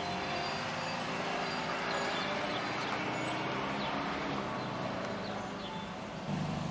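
Steady background hiss and hum with a few faint, short bird chirps.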